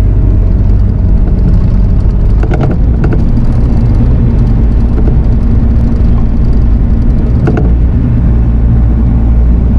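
Diesel engine of Bobcat heavy equipment running steadily, with a few short knocks about two and a half seconds in and again about seven and a half seconds in.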